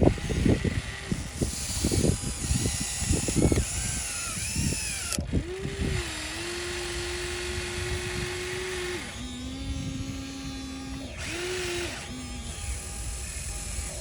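Small electric motors of a radio-controlled construction model whining at a steady pitch. The pitch drops partway through and climbs back near the end. A quick run of knocks and clatter comes first, in the opening few seconds.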